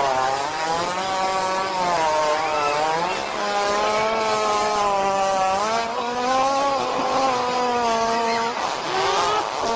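One long, unbroken fart that starts abruptly and lasts nearly ten seconds, its buzzing pitch wobbling up and down throughout.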